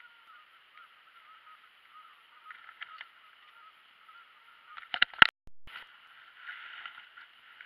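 A few sharp knocks and bumps about five seconds in, over a faint steady hiss. This is a crappie being handled and unhooked over a hard plastic kayak.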